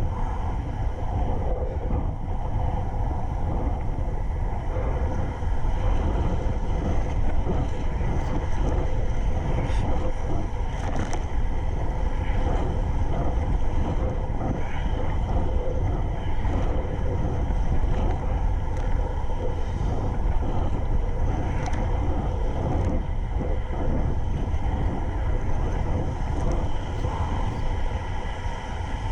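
Wind rumbling on the microphone, with Lake Michigan waves washing and slapping around a kayak out in rough water.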